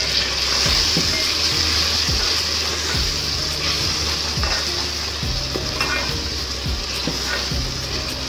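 Spiced onion-tomato masala sizzling in hot oil as a spoon stirs it through the pan, with irregular clicks and scrapes of the spoon against the pan over a steady sizzle.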